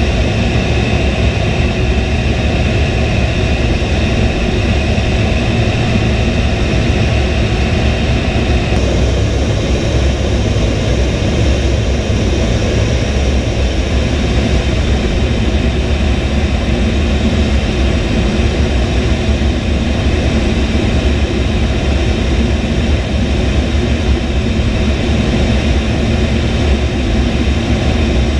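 A-10 Thunderbolt II's twin TF34 turbofan engines and rushing air, heard inside the cockpit as a loud, steady roar. A thin whine rides on it; about nine seconds in, the whine steps up to a higher pitch.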